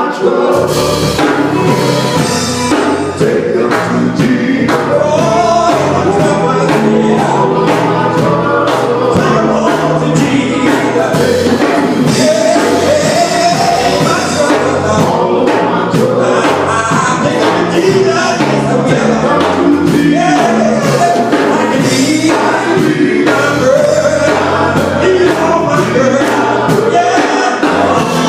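Gospel group singing in harmony over a band with bass and drums, a steady continuous performance.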